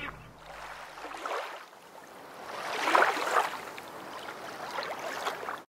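Small sea waves washing onto a beach, a soft rush that swells and fades about every two seconds, loudest about three seconds in, then cuts off suddenly at the very end.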